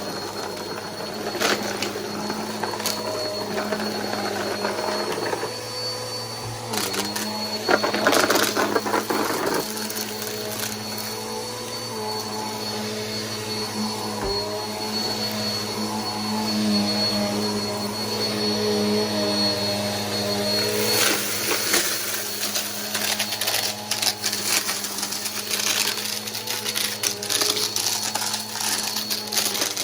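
Bissell PowerForce Helix upright vacuum running with a steady motor drone and a thin high whine. Bursts of clicks and rattles come around 7 to 9 seconds in and again through the second half.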